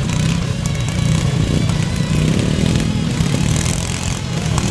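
Several lawn tractor engines running together, a steady low engine noise with no break.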